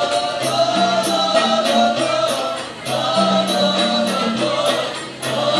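Nasyid group singing in chorus over percussion keeping a steady beat and a low bass line, with a short break between sung phrases about halfway through.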